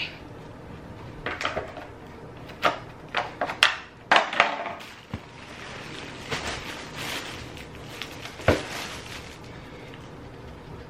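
Scattered knocks, clicks and rustles of a pair of Ugg slip-on slippers being handled and put on, loudest around four seconds in.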